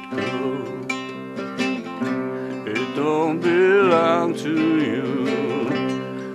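Country-style song music: acoustic guitar picking and strumming under a wavering melody line that swells about halfway through.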